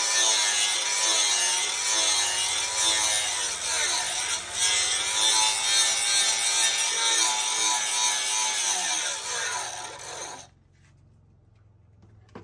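Electric grinding or sanding power tool working continuously, its motor pitch dipping and recovering as it is loaded, then shutting off abruptly near the end.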